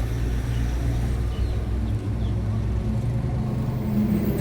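Steady low rumble of a motor vehicle running, engine and road noise.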